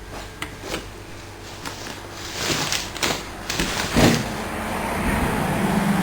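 A few sharp clicks from the remote's switches, then a loud clunk about four seconds in. After it comes the steady electric hum of the RC lawn mower's drive motors starting to run.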